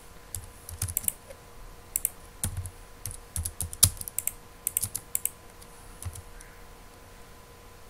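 Computer keyboard typing: irregular clusters of keystrokes while AutoCAD commands are entered, thinning out over the last couple of seconds.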